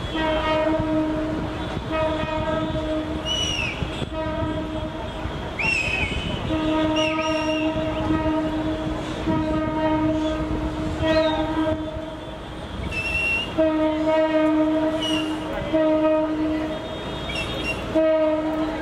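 Train horn sounding in a long run of repeated toots, each about half a second to two seconds long with short breaks, over the low rumble of the train. Short high gliding chirps come several times.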